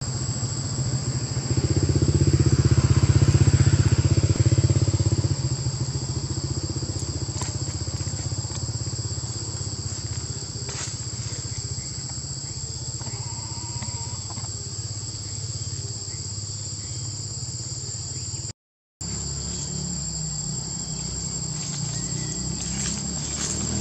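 A motor engine running steadily, loudest in the first few seconds, over a constant high-pitched insect buzz. The sound drops out for a moment about three-quarters of the way through.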